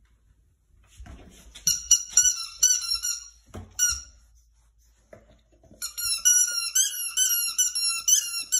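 Rubber squeaky toy shaped like a pacifier being chewed by a puppy, giving rapid runs of high squeaks. A short burst comes about two seconds in, then a longer run from about six seconds on, with a few soft knocks on the tile floor in between.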